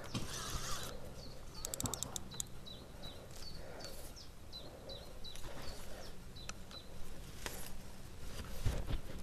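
A small bird chirping over and over in short, high, downward-sliding calls, with scattered sharp clicks and a brief rush of noise right at the start.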